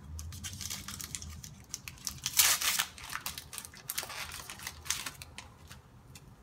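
Foil Pokémon booster pack wrapper being torn open by hand and crinkled, with the loudest rip about two and a half seconds in.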